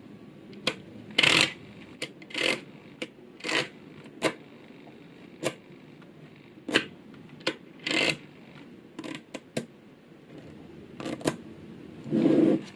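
Small magnetic balls clicking as they snap onto one another, in irregular sharp clicks about a second apart, with a few short rattling clusters.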